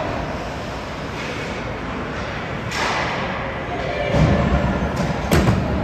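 Ice hockey play in a rink: dull thuds against the boards from about four seconds in, and a single sharp crack near the end, over steady background chatter from the stands.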